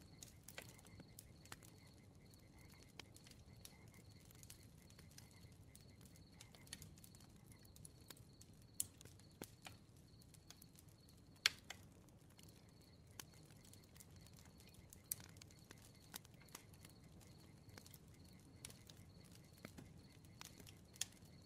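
Faint campfire crackling: scattered sharp pops and snaps at irregular intervals over a soft low rumble, with a faint high pulsing chirp running beneath.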